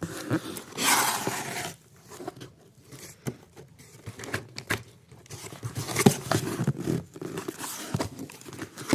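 Packaging being handled during an unboxing: plastic and paper rustling and crinkling, with scattered small clicks and taps and a longer rustle about a second in.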